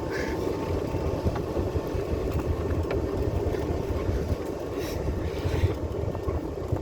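Golf cart driving along: a steady low rumble of the moving cart, with a few faint clicks and rattles from the cart as it goes, and wind buffeting the microphone.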